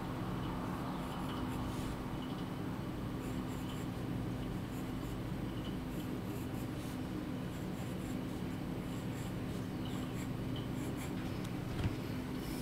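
Graphite pencil scratching on sketchbook paper in short, repeated strokes over a steady low hum, with a light knock near the end.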